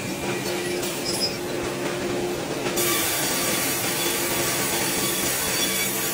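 Sawmill saw line running with a steady machine hum as a pine cant is fed along on the carriage; about three seconds in, a loud hiss joins as the saws cut into the wood.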